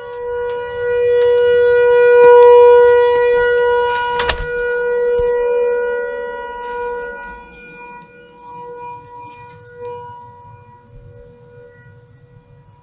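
Whelen Vortex rotating tornado siren sounding its steady alert tone: one held pitch that swells and fades as the siren head turns, loudest a couple of seconds in and then dying away with smaller swells. A brief thump about four seconds in.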